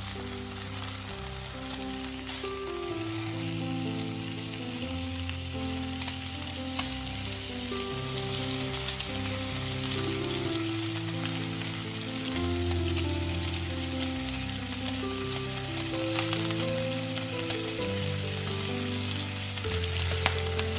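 Raw bacon strips frying in a pan, with a steady sizzle and a dense scatter of small crackles, over background music.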